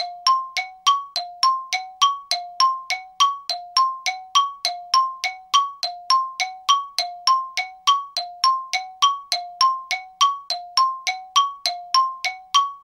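The 2018 Toyota Camry's dashboard warning chime dinging over and over: a steady two-tone ding repeating a little more than twice a second.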